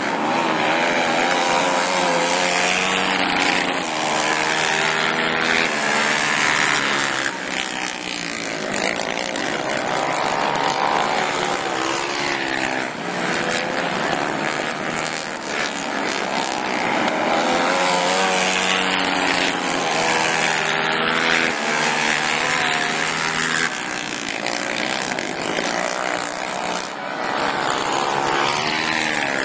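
Several racing ATV engines run flat out on a dirt oval, their pitch rising and falling as they throttle up on the straights and back off for the turns. The sound swells twice as the field passes close.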